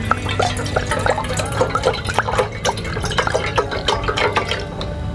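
Liquid poured in a thin stream into a metal pot, splashing and gurgling irregularly as it fills.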